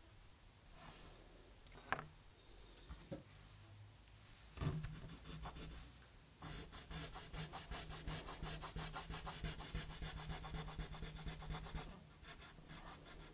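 Colored pencil scratching on drawing paper in rapid back-and-forth shading strokes for about five seconds in the second half, after a couple of light taps and a knock.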